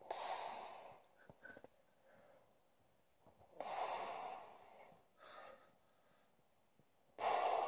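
A sleeping man breathing heavily through his nose: a loud, noisy breath about every three and a half seconds, with a softer one in between.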